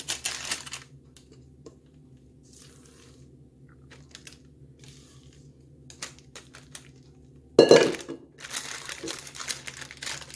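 Silicone spatula pushing thick batter around a square cake tin lined with baking paper and scraping out a bowl: soft scrapes, paper crinkling and light clinks, with a louder bump about eight seconds in.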